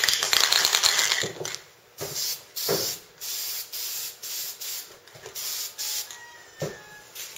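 Aerosol spray paint can hissing: one longer spray at the start, then a run of short bursts about two a second, as paint is laid on a transmission case.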